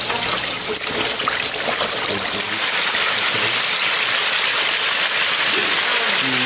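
Hot oil in an electric deep fryer sizzling hard around a basket of flour-dredged food just lowered in: a dense, steady hiss that thickens over the first couple of seconds.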